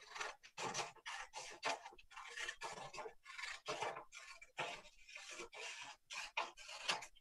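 Scissors cutting along a strip of paper: a run of quick snips, about four a second, with a few short pauses.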